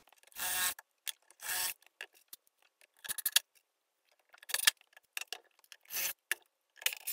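Cordless drill driving screws to fasten a drawer-slide track inside a dresser carcass, heard as a series of short rasping bursts with pauses between, the two loudest in the first couple of seconds.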